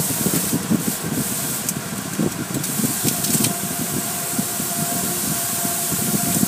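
Hand-held pressure-wash wand spraying water over a car's windshield, heard from inside the car. Water drums steadily on the glass, with a sharper hiss for the first couple of seconds.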